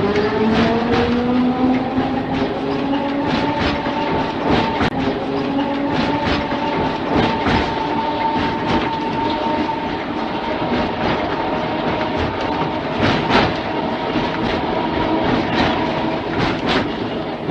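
Mumbles Railway electric tramcar running along the track: its motor whine finishes rising in pitch in the first couple of seconds and then holds steady, over a rumble of wheels with repeated sharp clicks as they cross rail joints.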